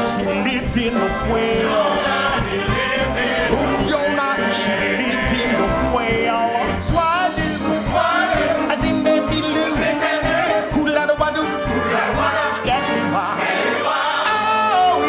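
Musical-theatre number: a man singing with a chorus over a band accompaniment that has a steady beat.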